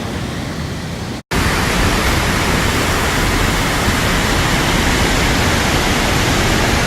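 Waterfall roar from Palouse Falls, a loud steady rushing. It cuts out for an instant just over a second in, then comes back a little louder.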